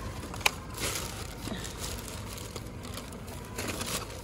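A black plastic garbage bag crinkling and rustling as gloved hands rummage through the discarded oranges and vegetables inside it. There is a sharp click about half a second in.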